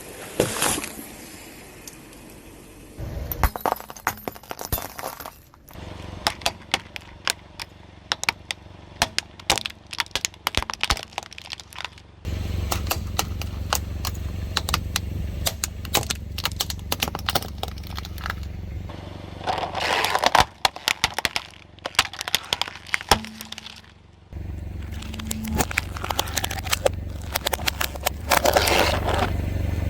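Brittle objects cracking and crunching under a slowly rolling car tyre: dense runs of sharp cracks and snaps, with the car's low steady rumble underneath from partway through.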